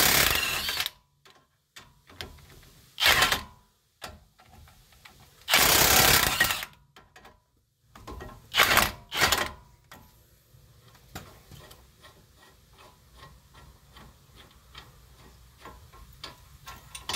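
Electric impact wrench hammering loose the 21 mm front caliper bracket bolts in five short bursts, the longest about a second, all within the first ten seconds. Faint light clicking follows for the rest.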